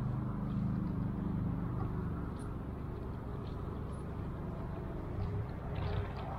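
Carp thrashing in a landing net at the water's edge, with short splashes near the end, over a steady low rumble like a distant engine.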